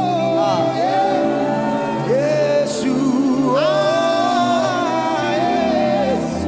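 Gospel song: a solo singing voice holds long notes with a wavering pitch over a steady instrumental backing.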